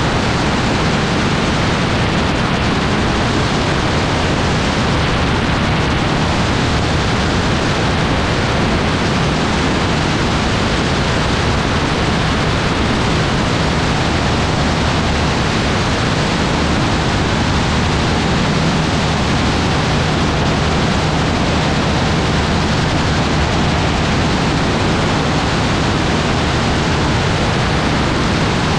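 Steady rush of wind over the microphone with the low drone of an AutoGyro MTO gyroplane's engine and propeller in level cruise flight.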